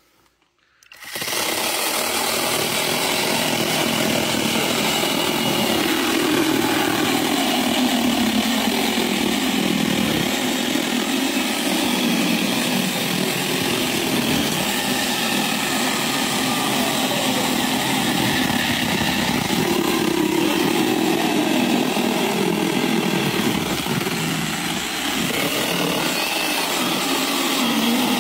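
A battery-powered Hardell mini chainsaw starts about a second in and runs without a break. Its electric motor whines as the chain cuts through old, weathered wooden boards, and the pitch sags and recovers now and then as the chain bites.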